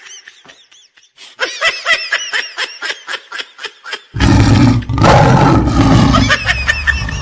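A tiger roar, loud and rough, starting about four seconds in and running to the end. Before it comes a rapid run of short, high-pitched squeaky calls, about five a second.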